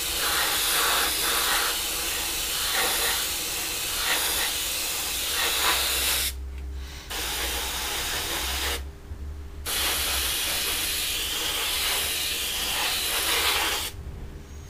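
Airbrush spraying paint at high pressure: a steady hiss of air, broken by two short stops about six and nine seconds in as the trigger is let off, and stopping near the end.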